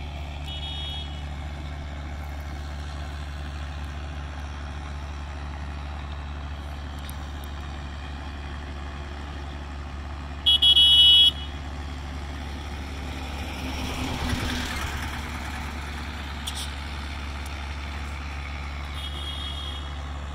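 Motor traffic: a steady low engine drone, with short high-pitched electronic horn beeps, one loud beep about halfway and fainter ones near the start and end. A few seconds after the loud beep a vehicle passes, its noise swelling and fading.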